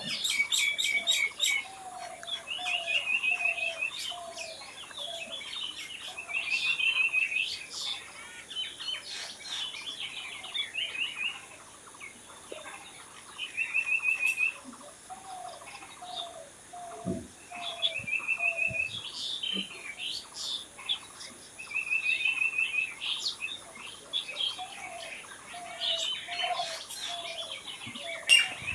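Several wild birds singing and chirping. One repeats a short, rapid trill about every four seconds, and a lower-pitched run of short notes comes in stretches between them.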